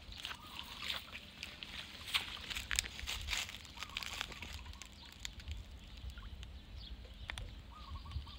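Cast net being hauled in from a pond: water sloshing and dripping off the mesh, with the wet net and rope rustling in a string of short crackles, busiest in the first four seconds.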